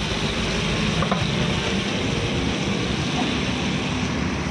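Whole masala-coated fish frying in oil on a large flat iron tawa, a steady sizzle, with a light click about a second in.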